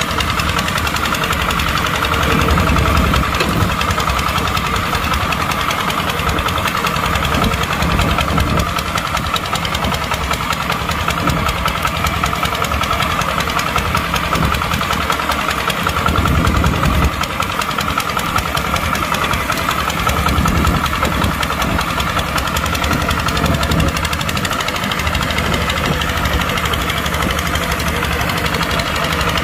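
Kubota tractor's diesel engine running steadily, working a plow.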